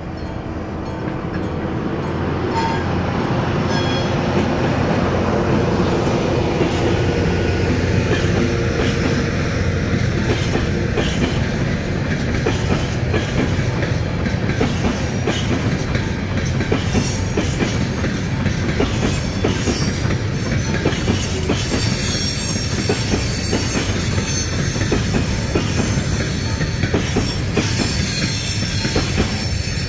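Locomotive approaching and passing with its engine running, then a long train of silo hopper wagons rolling over the level crossing: a steady rumble with constant clickety-clack of wheels over the rail joints, and high wheel squeal in the later part.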